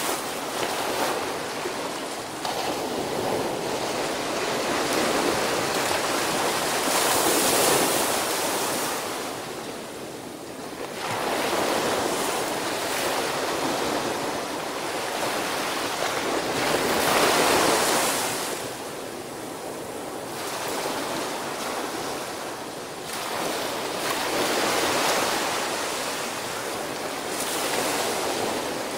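Small surf breaking on a sandy beach and washing up the shore. Each wave swells and fades, a new one every several seconds.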